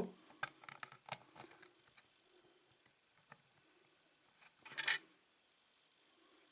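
Faint small clicks and taps of hand work on a bench as a dropper wire is placed on the rail for soldering, with one short louder scrape or rustle about five seconds in.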